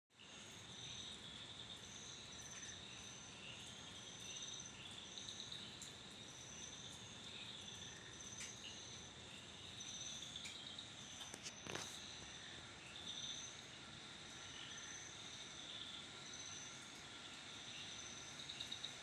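Crickets chirping faintly, two different high-pitched pulsing calls overlapping throughout, with a single brief click about twelve seconds in.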